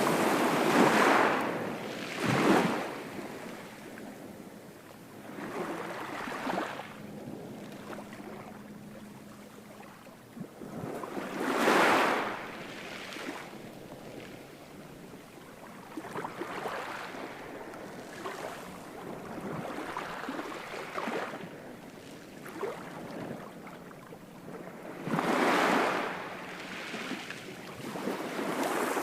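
Ocean waves breaking and washing in, one surge after another every few seconds. The biggest swells come about twelve seconds in and around twenty-six seconds, and another builds near the end.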